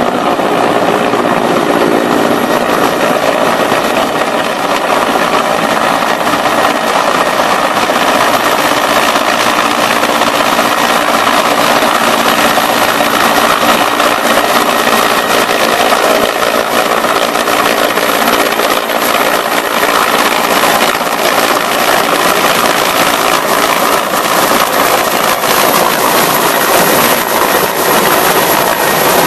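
Helicopter flying low and hovering with a load slung on a long line, its rotor and engine noise loud and steady.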